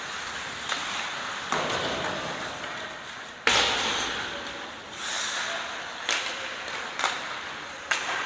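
A series of about seven sharp cracks and knocks from a practice drill, the loudest about three and a half seconds in, each trailing off into a fading hiss.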